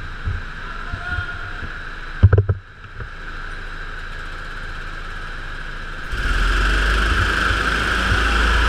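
Indoor racing go-kart running at speed, heard from a camera mounted on the kart: a steady motor note over rumble and vibration, with a few heavy knocks a little over two seconds in. From about six seconds in it gets louder and heavier.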